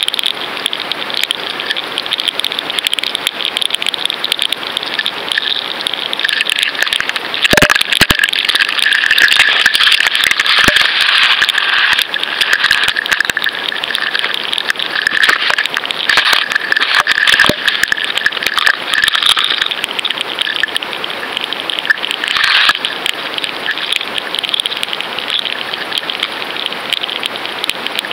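Underwater sound heard through a submerged fishing camera: a dense, steady crackling and popping, with a few sharp knocks and a steady whine that comes in for a while in the middle.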